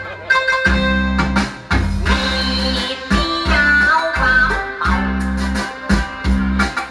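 Live backing music from a Korg electronic keyboard: a plucked, guitar-like melody over a pulsing bass line.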